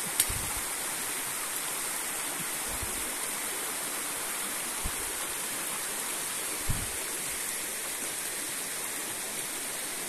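Steady rushing of a forest creek, with a steady high hiss over it. A few soft low thumps of the phone being handled come through as it pans.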